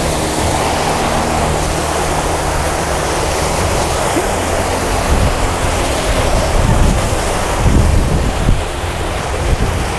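Rushing water of a small rocky stream, with wind buffeting the microphone in gusts that are strongest toward the end.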